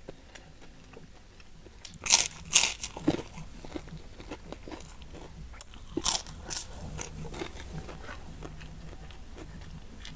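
Close-miked mouth sounds of someone eating lemongrass fried chicken and rice: chewing and crunching, with the loudest crunches about two seconds in and again around six seconds, and small clicks between.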